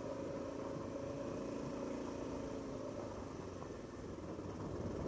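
Honda XR650L motorcycle's single-cylinder four-stroke engine running steadily under way.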